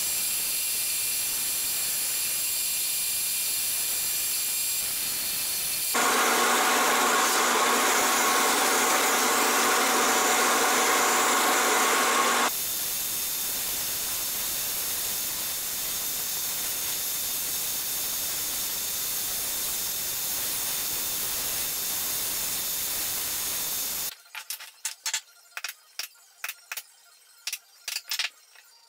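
Drill press running and boring holes through a wooden clamp jaw: a steady hissing whir, with a louder, harsher stretch from about six to twelve seconds in. About four seconds before the end the machine sound stops and light taps and clicks of wooden blocks being handled on a bench follow.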